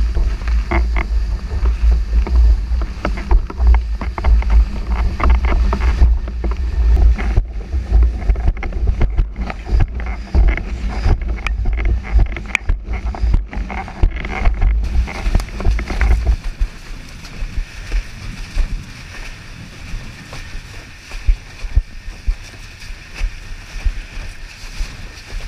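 Wind buffeting the microphone of a windsurfing action camera, with water rushing past and the board knocking over chop as it planes. About sixteen seconds in the heavy wind rumble drops away, leaving a lighter wash of water and spray.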